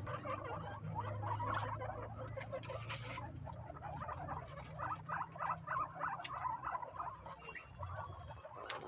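Peru-breed guinea pigs eating dry corn husks: a dense, rapid crackle of chewing and husk rustling.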